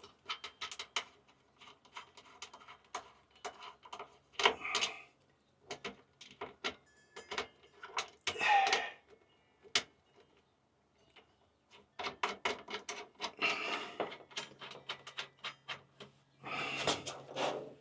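Irregular clicks and light knocks mixed with short bursts of rustling and scraping as battery cables and heater fittings are handled and fitted, with a faint low hum behind in places.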